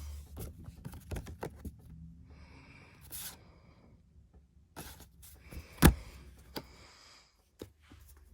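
Album contents being handled: paper and card rustling with scattered light clicks and taps, and one sharp, much louder tap about six seconds in.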